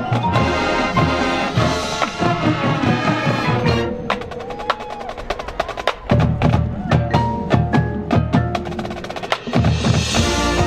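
High school marching band playing: full band with brass for the first few seconds, then a percussion passage of sharp wood-block-like clicks and mallet notes, with the full band coming back in near the end.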